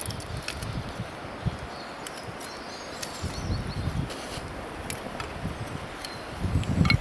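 Small kindling fire crackling as dry split sticks are laid onto it, with a few sharp snaps and light wooden clicks. A low rumble comes up near the end.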